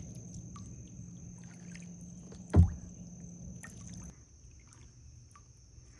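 Kayak paddling: paddle strokes stirring swamp water with faint drips and splashes, and one sharp knock about two and a half seconds in. The water noise dies down near the end as the kayak glides.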